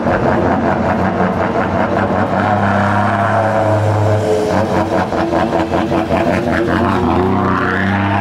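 Semi truck's diesel engine running loud through its exhaust: a deep, steady drone with a fast pulsing, its pitch rising briefly near the end.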